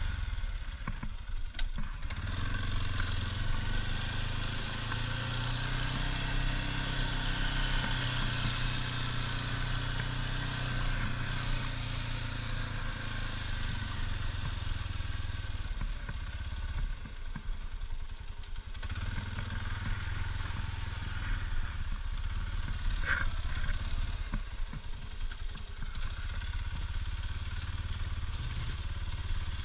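ATV engine running steadily, easing off briefly a little past halfway and then picking up again.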